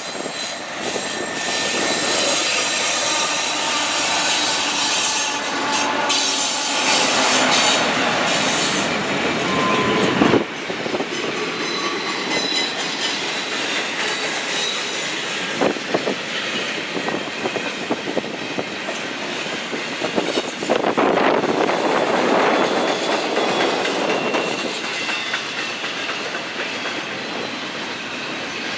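Railroad cars rolling by on the rails, wheels squealing and clicking over rail joints, with a sharp bang about ten seconds in.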